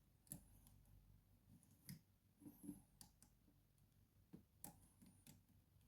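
Faint, irregular clicks of a lock pick working the pins inside a Mul-T-Lock interactive padlock. The lock is in a deep false set while the pick searches for the last binding inner pin.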